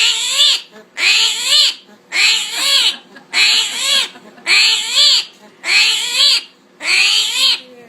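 An animal calling over and over, about seven calls roughly once a second, each a short burst of quick rising-and-falling squealing chirps.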